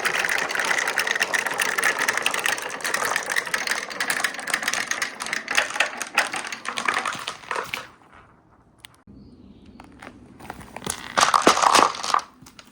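Marbles rolling and clattering down a wooden marble run with right-angle turns: a dense, rapid rattle of clicks that thins out about eight seconds in to scattered single clicks, with a short burst of clattering near the end.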